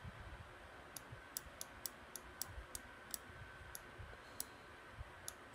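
Faint, sharp clicks of a computer mouse, about a dozen at uneven intervals, as a web page is scrolled.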